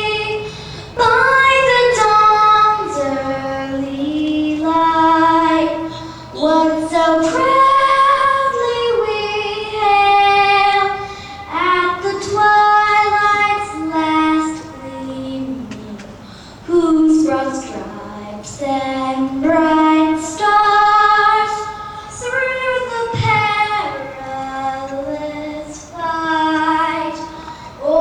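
An eight-year-old girl singing the national anthem solo, holding long notes and gliding between them, with short pauses for breath.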